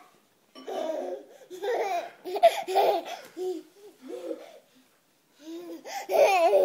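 Toddler laughing and babbling in about six short bursts, the loudest near the end.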